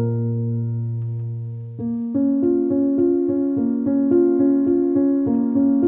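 Instrumental interlude on an electronic keyboard: one chord held for nearly two seconds, then a quick run of short notes, several a second.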